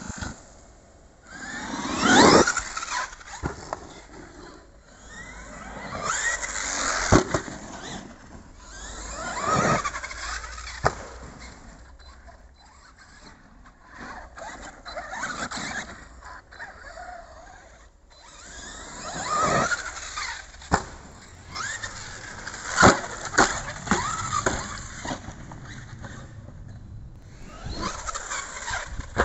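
Arrma Kraton 4S electric RC monster truck's 2250kv brushless motor and drivetrain whining up in pitch each time the throttle is punched, about half a dozen times. Sharp knocks come between the runs as the truck lands off jumps and hits the ground.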